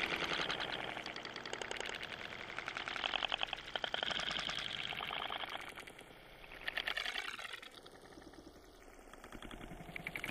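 Churning water and bubbles crackling and rattling against a submerged camera housing as the kayak goes through surf. The rattle fades about six seconds in and grows louder again near the end.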